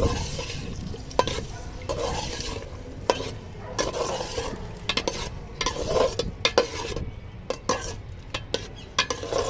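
Potato chunks sizzling as they fry in hot oil in an aluminium pot, while a metal spoon stirs them, with repeated irregular scrapes and clinks against the pot.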